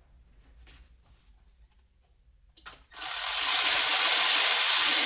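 A power tool runs steadily for about two and a half seconds, starting about three seconds in, running a bolt down to snug the intake manifold.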